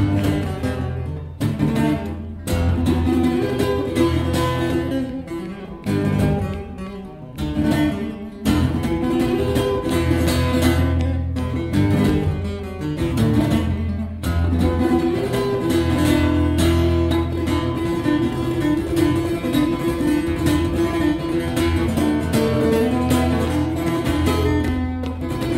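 Taylor 314CE cutaway acoustic guitar played fingerstyle: a steady bass line under a picked melody, with a few brief breaks in the flow.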